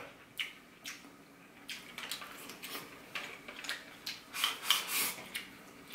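Eating sounds: chopsticks clicking against a small bowl and mouth sounds of chewing rice and steamed fish, heard as a scatter of short clicks and smacks.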